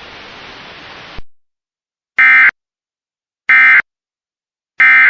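Emergency Alert System end-of-message data bursts: three identical short, buzzy digital warbles, each about a third of a second long and about 1.3 seconds apart, signalling the end of the alert. Before them a faint radio hiss cuts off about a second in.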